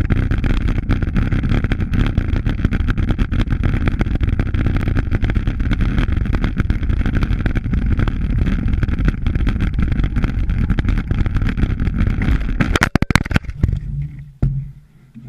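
Wind buffeting the microphone and the bicycle rattling over a rough, leaf-covered dirt trail at speed. About 13 seconds in there is a quick cluster of hard knocks as the bike crashes, and then the riding noise falls away.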